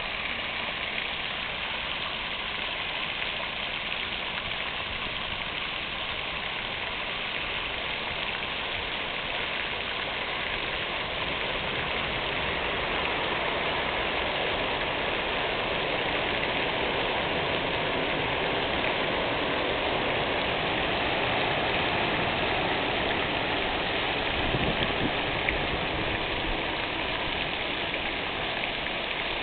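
Fountain water splashing steadily, an even hiss of falling water.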